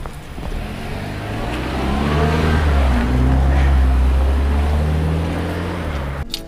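A motor vehicle's engine running nearby, swelling over a few seconds into a steady low rumble and easing off slightly, then cut off suddenly near the end.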